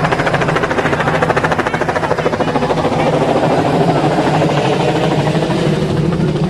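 A loud, steady engine drone.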